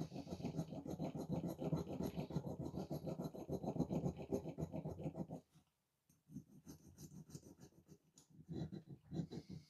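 Rapid back-and-forth scratching strokes of hand abrasion on a stripped metal diecast car body, running steadily for about five seconds, pausing briefly, then resuming more softly.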